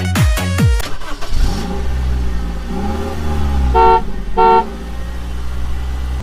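Motor vehicle engine running and revving up and down, with two short horn honks about half a second apart. Electronic dance music with a steady beat fills the first second.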